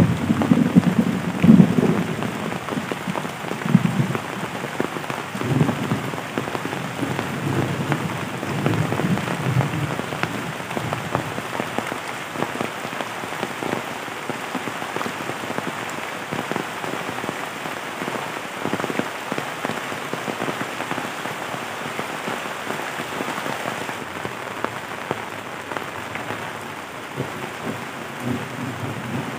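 Heavy rain pouring steadily onto leaves and the ground, a dense patter of countless drops. Low rumbles come and go during the first ten seconds or so, then fade.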